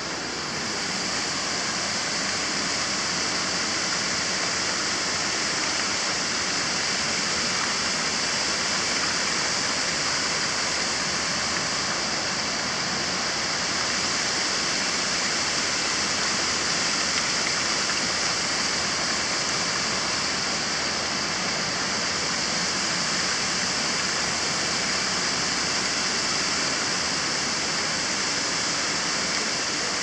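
Mountain waterfall rushing steadily: an even wash of falling water, bright and unchanging.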